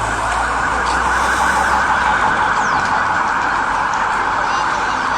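Emergency vehicle siren sounding continuously at a steady level.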